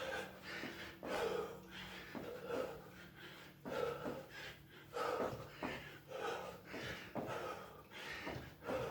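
A person breathing hard during frog jacks, with short forceful breaths about once a second.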